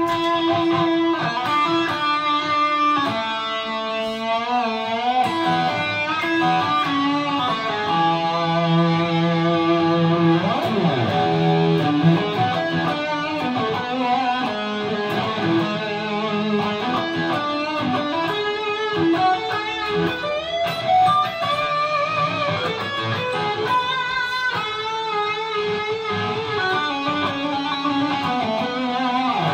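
Electric guitar played through a Line 6 Helix modelling a Marshall JCM800 amp and a Greenback 4x12 cabinet, improvising lead lines with held notes that waver in pitch and a slide about ten seconds in.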